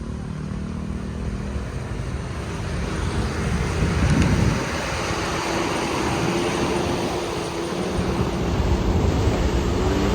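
Large vehicle engines running with road traffic noise, with a brief louder rumble about four seconds in and a steady engine hum through the second half.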